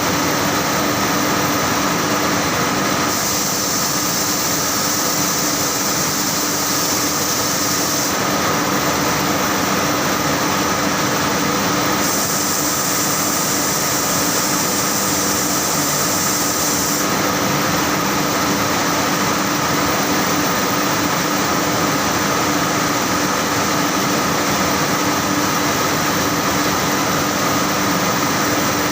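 Saurer JSC 330 carding machine running: a loud, steady mechanical hum with two constant tones. A high hiss comes in about 3 seconds in and again about 12 seconds in, each time for about five seconds.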